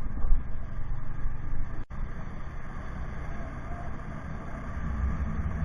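Low, uneven rumble of a vehicle travelling along a road, with wind buffeting the microphone; the sound cuts out for an instant about two seconds in.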